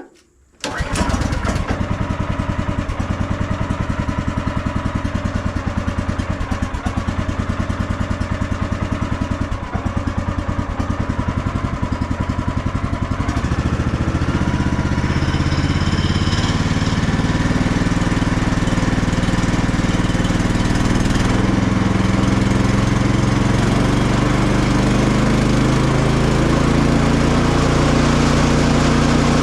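Bandsaw sawmill's gasoline engine starting under a second in and then running steadily. About halfway through, its sound deepens and gets a little louder, with a slowly wavering pitch, as it comes under a heavier load.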